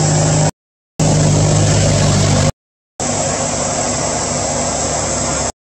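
A steady low motor drone over a high, even insect shrill, broken three times by half-second dropouts to silence.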